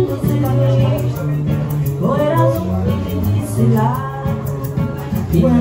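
Live music: a woman singing a melody into a microphone, accompanied by a steadily played acoustic guitar.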